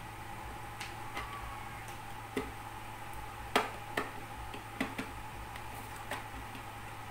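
Metal pry tool being worked into the seam of a plastic router case, giving irregular sharp plastic clicks as the snap clips are forced; the loudest click comes about three and a half seconds in.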